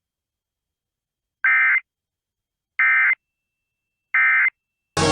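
Emergency Alert System end-of-message signal: three short, identical bursts of digital data tones, about a second and a half apart, marking the end of the alert.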